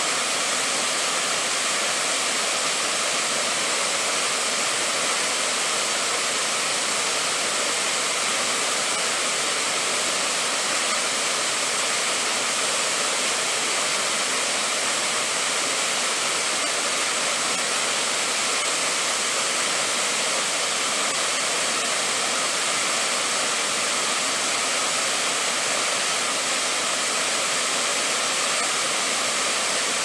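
Sankai Falls, a stepped mountain waterfall, pouring down a rock face: a steady, even rushing of falling water, heavier in the hiss than in the rumble.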